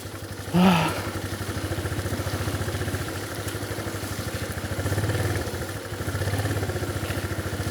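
Motorcycle engine idling with an even, fast pulse, rising slightly twice in the second half. A brief vocal sound comes about half a second in.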